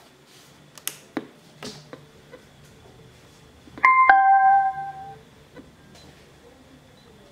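Three light taps on the top of a DIY Bluetooth speaker, then, about four seconds in, a loud two-note falling electronic chime from the speaker as it powers on.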